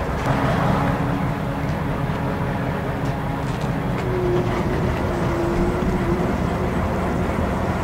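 Crane's engine running steadily while it lowers a sailboat hanging in slings, with a faint whine coming in about halfway.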